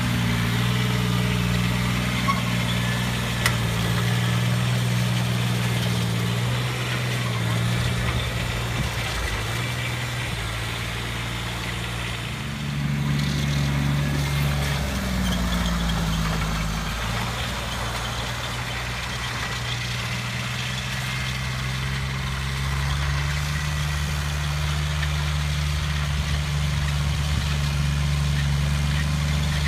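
Polaris Ranger diesel UTV on rubber tracks, its diesel engine running steadily under load as it crawls through snow. The engine note rises about twelve seconds in, drops back a few seconds later, and climbs again in the second half.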